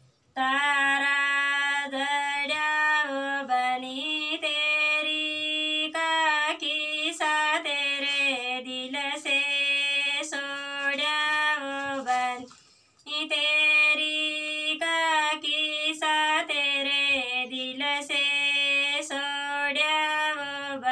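A female voice singing a folk melody in long held phrases, with a short breath pause about twelve seconds in.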